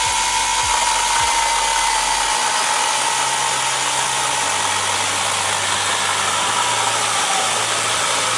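IMOUMLIVE 6-inch brushless cordless mini chainsaw running steadily as its chain cuts through a 2x4. The motor and chain give a steady whine over dense wood-cutting noise, and the whine sinks slightly in pitch as the chain works through the wood.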